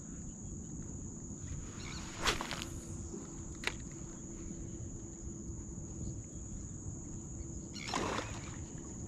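Steady high-pitched drone of insects over a low rumble of wind and water, with a short rushing noise about two seconds in, a sharp click near four seconds and a longer rushing noise about eight seconds in.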